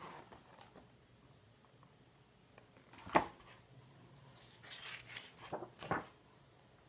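A page of a hardcover picture book being turned by hand: one sharp click about three seconds in, then a few short papery rustles as the page goes over.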